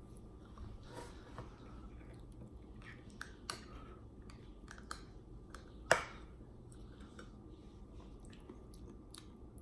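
Metal butter knife scraping and clicking against a tin can while scooping out canned tuna and spreading it on toast: scattered soft clicks and scrapes, with one sharper click about six seconds in.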